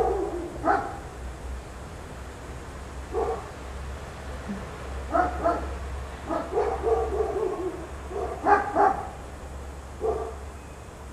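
A dog giving several short yips and barks, some in pairs, with a longer wavering whine about seven seconds in. A steady low hum runs underneath and stops about eight seconds in.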